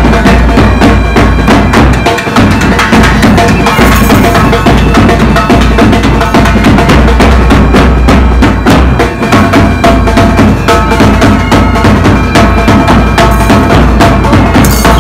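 Drums beating rapidly, with bagpipes playing steady held notes over them: traditional band music.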